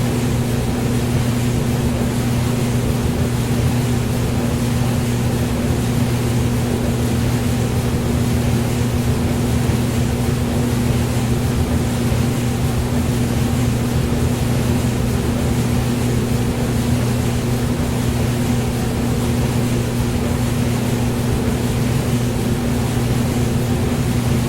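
Hair dryer running continuously: a steady rush of air over an unchanging low motor hum.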